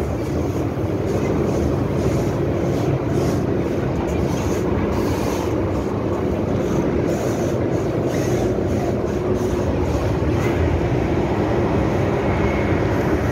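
Steady running noise inside an MTR M-Train carriage under way: a continuous rumble of wheels and running gear with a steady hum.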